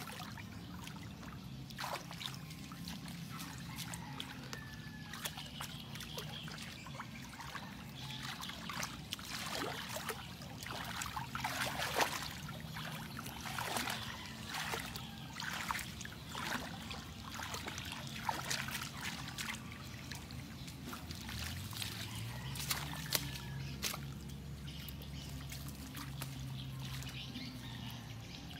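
Hands splashing and scooping in shallow muddy water: irregular sloshes and dribbles, thickest and loudest in the middle, over a low steady hum that rises slightly in pitch about three quarters of the way through.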